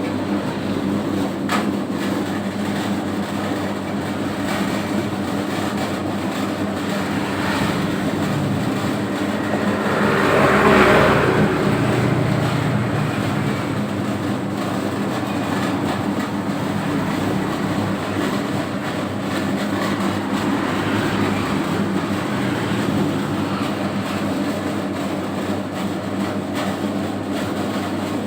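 Homemade 3 kg donut-dough mixer running steadily, a continuous machine hum, swelling louder for a couple of seconds about ten seconds in.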